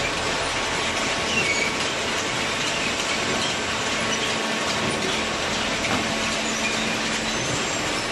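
Imabe cardboard baler running: a steady mechanical rumble and hiss with faint squeaks and clatter over it.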